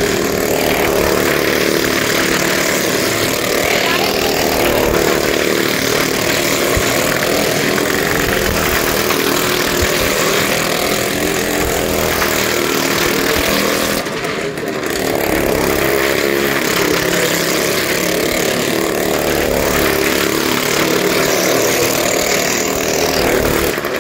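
Motorcycle engine running hard as it circles the wooden wall-of-death well, its pitch wavering up and down with the laps, with a short dip about halfway through.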